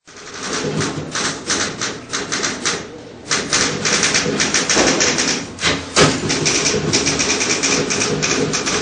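Typewriter being typed on fast, in a rapid patter of key strikes with a short pause about three seconds in and a heavier knock about six seconds in.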